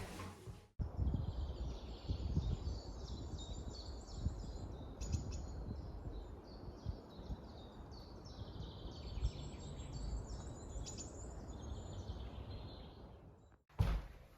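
Small songbirds singing in repeated chirping phrases, several in a row, over a low steady rumble.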